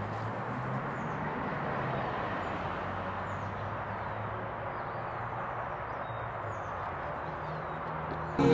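Steady outdoor background hiss with a faint low hum, and faint short bird chirps every second or two.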